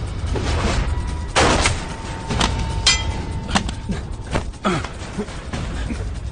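Scuffle sound effects: several sharp hits and thuds over low, dramatic background music with a held high note.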